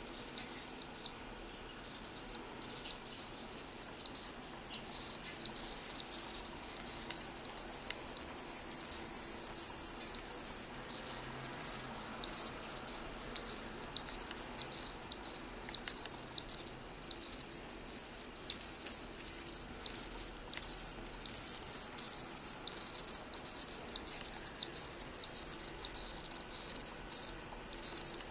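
Young common swift calling: a high, thin trill repeated in rapid series with only brief breaks. It pauses for about a second just after the start, then runs on almost without stop.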